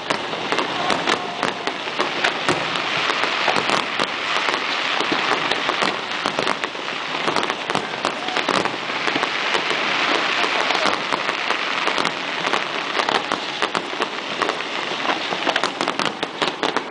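Fireworks crackling densely and without a break: a thick, steady mass of many small pops.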